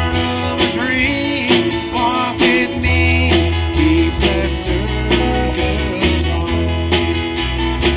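Live band playing a gospel song: acoustic guitar strummed over bass guitar and a drum kit keeping a steady beat, with a man's voice singing into the microphone.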